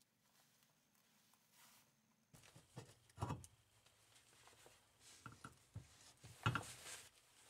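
Lawn tractor transaxle gears and shafts being handled and set into the open cast-metal case: a few light knocks and clinks starting a little over two seconds in, the loudest two about three and six and a half seconds in.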